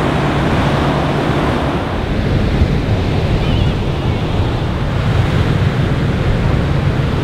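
Ocean surf breaking and washing up the beach, steady and fairly loud, with wind buffeting the microphone.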